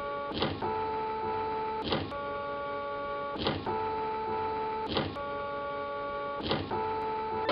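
Stratasys Objet30 Pro 3D printer's print-head carriage shuttling back and forth. A steady motor whine changes pitch with each pass, and a short swish marks each reversal, about every one and a half seconds.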